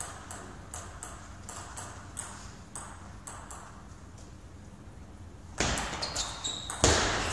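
Plastic table tennis ball bounced lightly and repeatedly, about two ticks a second, before the serve. About five and a half seconds in, a fast rally breaks out, with rapid, much louder hits of the ball on the bats and table.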